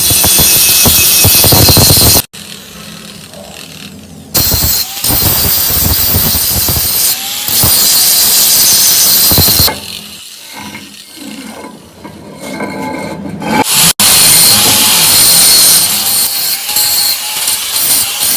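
Angle grinder grinding down weld beads on a steel axle housing: a harsh, high-pitched grinding sound in three loud stretches, broken by sudden cuts and a quieter stretch.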